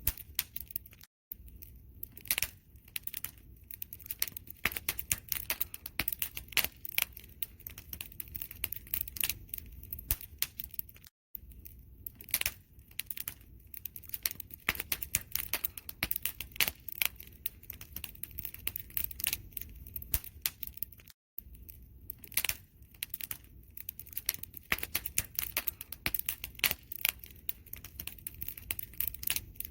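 Wood fire crackling, dense irregular sharp snaps over a low steady rumble of the flames. The sound drops out to silence for a split second three times, about ten seconds apart.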